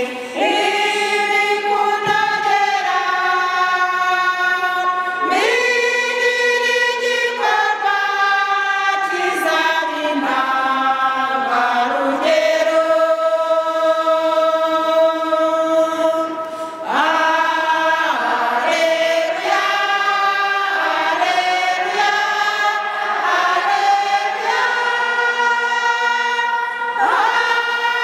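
A women's church choir singing a hymn together in long held notes, with a short break between phrases a little past halfway.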